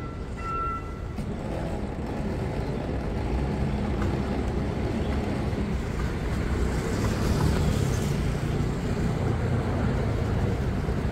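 Railway level-crossing warning signal beeping in an even on-off rhythm, stopping about a second in. A steady low rumble of passing vehicles follows.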